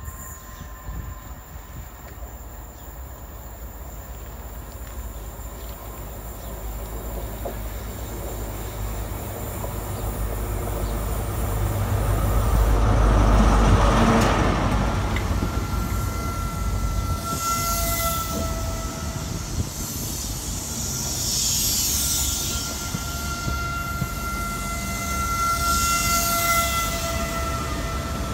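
High Speed Train approaching and running slowly past along the platform line. The diesel power car's engine grows louder to its loudest about halfway through as it goes by. Then the coaches roll past with a swell of wheel noise every few seconds and thin, high, steady squeals.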